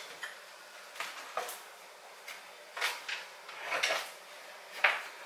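Kitchen clatter: about half a dozen light knocks and clinks spread over a few seconds as things are handled at the counter, drawers and dishes.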